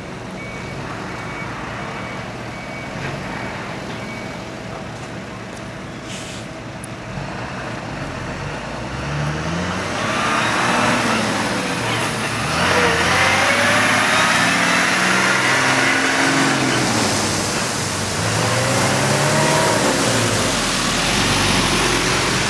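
Large vehicle, likely a truck: a backup alarm beeps for the first few seconds, then from about eight seconds in its engine grows louder, with the pitch rising and falling repeatedly as it revs or works through the gears.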